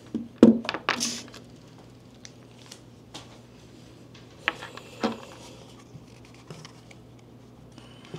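Clicks and rustles of objects being handled, in a cluster about half a second to a second in and a few more about four and a half to five seconds in, over a faint steady hum.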